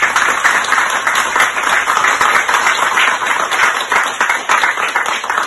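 A small group of people applauding, with dense, loud hand claps close by that die away near the end.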